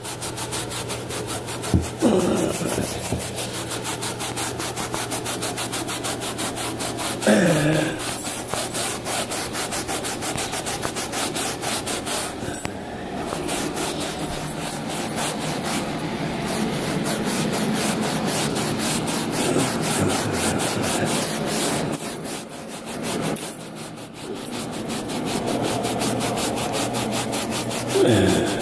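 Hand scrub brush scrubbed rapidly back and forth on carpet pile, agitating a sprayed-on rust-removing chemical into the stain: a steady run of quick scrubbing strokes with a couple of brief pauses.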